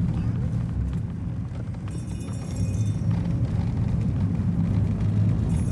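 Low, steady rumble of a motor vehicle running.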